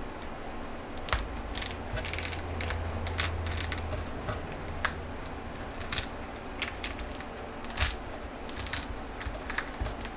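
Irregular sharp clicks and light knocks, as of things being handled, over a low hum that is strongest in the first half.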